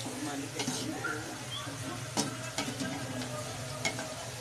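Bitter gourd pieces, already lightly golden, sizzling as they fry in oil in an aluminium karahi, stirred with a wooden spatula that knocks against the pan a few times. A steady low hum runs underneath.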